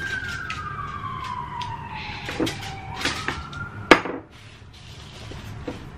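A siren outside, one wailing tone falling slowly in pitch and then rising again before it stops about four seconds in. Over it come a few clicks and knocks of handling at the table, the sharpest about four seconds in.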